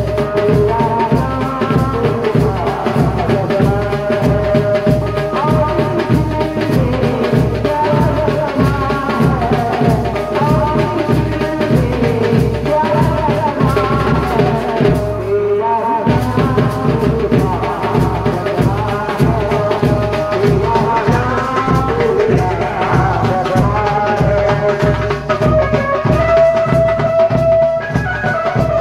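Background music with a steady drum beat under a melody; the music breaks off for a moment about halfway through.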